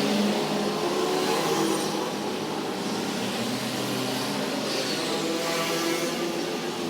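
Generator set's Honda GX620 air-cooled V-twin engine running steadily at speed, its pitch wavering slightly.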